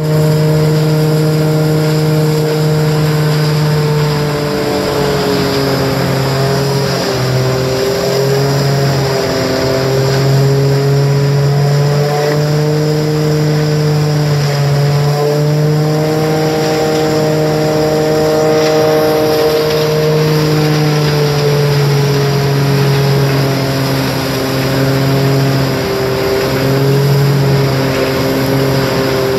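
John Deere 6125R tractor running under load, driving a Vermeer CPX 9000 bale processor that grinds cornstalks and blows them out of its discharge chute. A steady, loud machine drone whose pitch dips slightly now and then, over a constant rushing noise of material being thrown.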